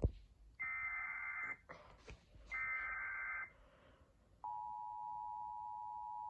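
Emergency Alert System tones: two roughly one-second bursts of SAME header data, a buzzy digital warble, then about four and a half seconds in the steady two-tone EAS attention signal begins and holds. The tones announce a tornado warning.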